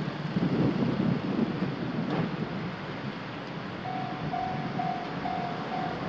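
Japanese railroad crossing warning bell starting up about two-thirds of the way in, an electronic ding repeating about twice a second: the crossing's alarm for an approaching JR Yokohama Line train. Before it, cars pass over the crossing, with wind on the microphone.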